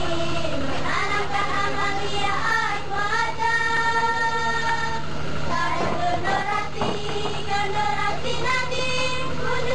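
A song sung in young girls' voices with held notes over musical accompaniment, with a steady low hum underneath.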